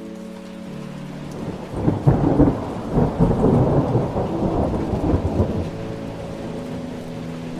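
Thunder rumbling over steady rain, swelling to its loudest between about two and five and a half seconds in, then dying back to the rain.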